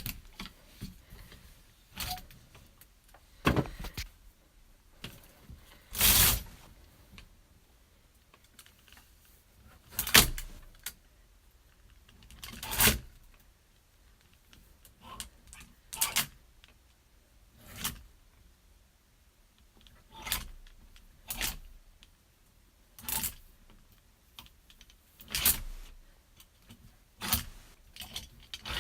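Clothes on metal hangers being slid along a rack rail, the hooks scraping and jingling on the metal bar. About a dozen separate short slides, one every two seconds or so, with pauses between.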